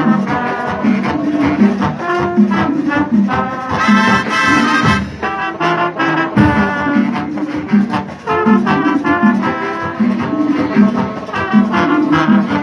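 A marching band plays a brass-led Latin tune, with trumpets and trombones over drums that keep a steady beat. About four seconds in, the full band hits a louder, brighter passage.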